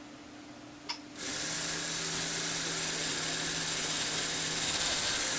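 A click, then a small electric motor and plastic gearing of a Lego Technic lifter start whirring steadily, running to the end.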